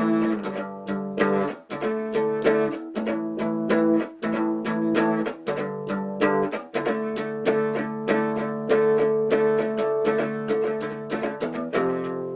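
Guitar strumming chords in a steady rhythm, the chord changing every second or two.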